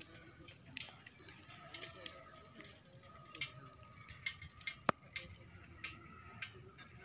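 Steady high-pitched trilling of night insects such as crickets, with scattered light ticks and clicks over it and one sharper click about five seconds in.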